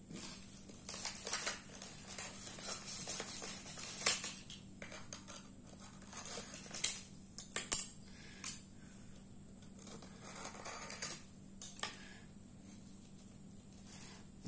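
Hands scraping and picking dried cow-dung crust and thread off a buried pot, with irregular scratching, crumbling and sharp little clicks, a couple of them louder about four and eight seconds in.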